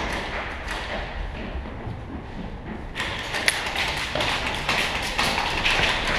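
Footsteps on hard floor, then a quick run of taps and thuds from about three seconds in as boots climb metal stairs, with one sharper snap among them.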